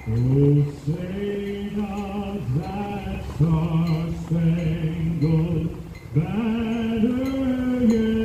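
A man singing slowly, holding long notes with vibrato.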